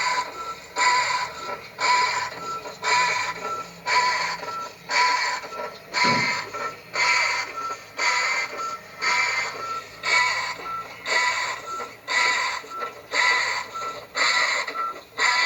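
Washing machine agitating, each back-and-forth stroke giving a rasping squeal, about three strokes every two seconds. A scraping noise that the repairer puts down to a loose nut at the agitator shaft, or, if tightening does not cure it, a worn-out bushing cup.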